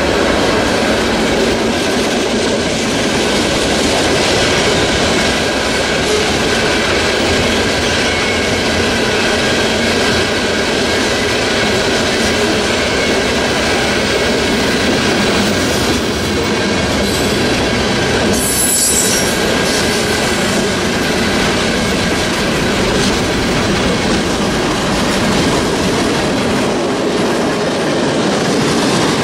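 Railroad cars rolling past on steel rails: a steady, loud noise of wheels on track with faint squealing tones. About 19 seconds in there is a brief high-pitched screech.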